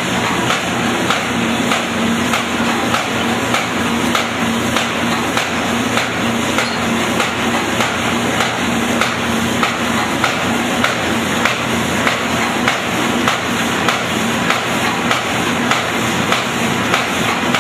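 Paper bag making machine running: a steady mechanical clatter and hum with a regular knock about twice a second as its rollers turn.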